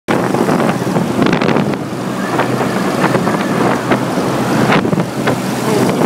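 Daikin air-conditioning outdoor unit running: a steady compressor hum under the air noise of its fan, with a few brief rustles against the microphone.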